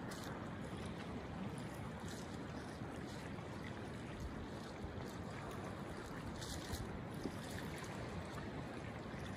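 Steady rushing of a wide, fast-flowing river's open water running past its snowy bank, with a few faint ticks.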